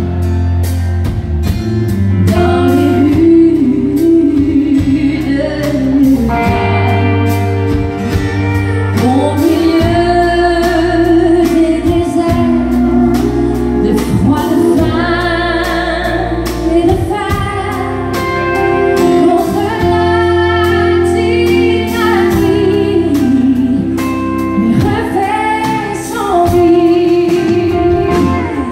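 Live country band: a woman sings lead over electric and acoustic guitars, bass and drums, amplified through a stage sound system.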